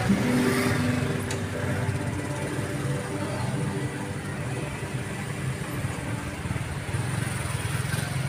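Large outdoor crowd murmuring, many voices blending into a steady hubbub.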